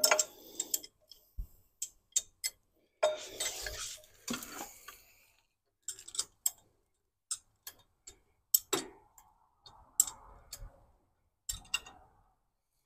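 Irregular metallic clicks and clinks of hand tools and small metal parts being handled and set down, with a longer rustling scrape about three seconds in and a sharper clack near the end.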